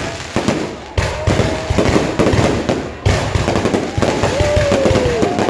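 Fireworks going off in a dense crackling barrage, with sharp new bursts about a second in and again near three and four seconds.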